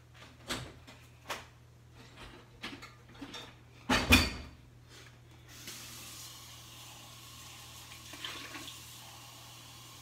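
Cups and dishes knocking and clattering, with one loud knock about four seconds in, then water running steadily into a measuring cup from about halfway on.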